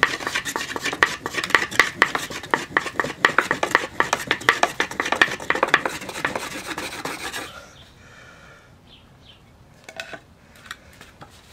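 A fire roll of cotton and rust powder being rolled hard between two wooden boards: a fast, even back-and-forth scraping of wood on wood that stops abruptly about seven and a half seconds in. The friction heats the roll until it smoulders. A couple of light knocks follow near the end as the top board is lifted off.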